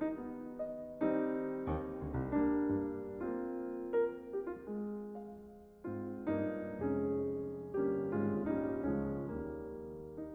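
Background piano music: slow notes and chords struck one after another, each left to ring and fade.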